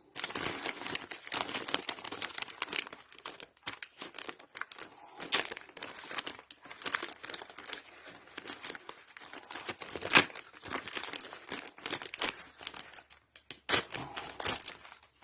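Packaging being handled: a continuous irregular crinkling and rustling with small clicks, and one sharper, louder click about ten seconds in.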